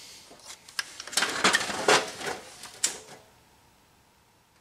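Handling noise from work on a plasma cutter's air filter-regulator: rustling with several sharp clicks and rattles of plastic and metal parts, from about a second in to about three seconds in.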